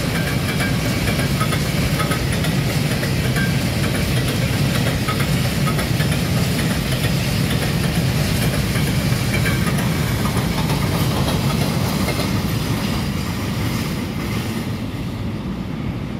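Freight train of open-top wagons rolling past on the rails: steady wheel and wagon noise with brief faint high squeaks, fading as the train draws away near the end.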